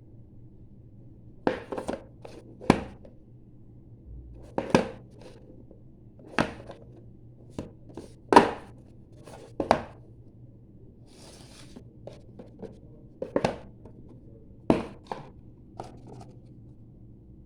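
Sharp clicks and knocks of hands handling a small phone and its packaging, one every second or two, with a brief rustling scrape about eleven seconds in.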